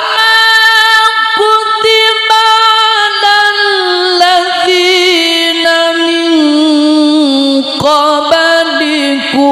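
Male Quran reciter (qari) chanting tilawah in one long melismatic breath. The held line steps slowly down in pitch with quick ornamental turns and breaks only briefly near the end.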